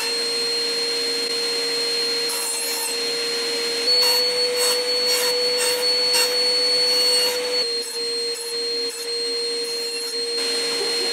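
Metabo BAS 261 Precision bandsaw's induction motor running with a steady hum that almost sounds like a cat. From about four seconds in to past seven seconds it grows a little louder, and the blade cuts small pieces of wood in a series of short bursts.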